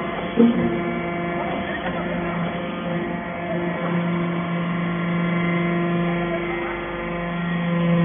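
Hydraulic metal-chip briquetting press running, a steady hum with a low tone and overtones from its hydraulic power unit. There is a brief knock about half a second in.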